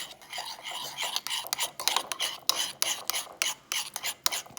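A spoon stirring sticky shampoo-and-salt slime in a bowl: a run of irregular wet clicks and spoon taps, several a second.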